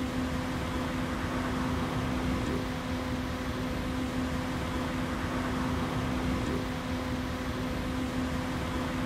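A steady hum with one constant low tone over an even rushing noise, unchanging throughout.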